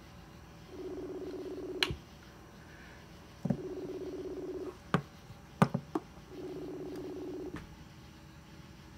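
Facebook Messenger outgoing call ringing on a phone speaker, unanswered: a low pulsing ringback tone about a second long, heard three times about three seconds apart. A few faint clicks fall between the tones.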